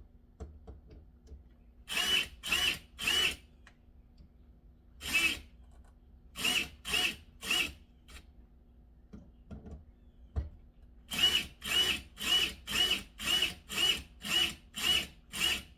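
Cordless drill/driver run in short pulses while driving screws, its motor whining in brief bursts: three, then one, then three, then a quicker run of about ten, roughly two a second.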